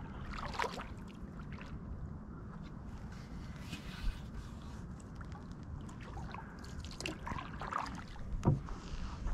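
Canoe moving over calm water along a marsh edge: soft swishes of water and a few knocks and scrapes against the hull, the sharpest knock about eight and a half seconds in, over a low rumble.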